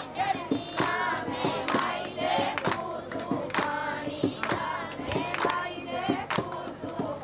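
A group of women singing together, with hand claps keeping a steady beat about once a second.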